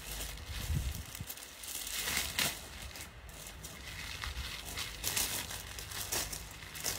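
Clear plastic bag crinkling and clothes rustling as garments are handled, in irregular bursts.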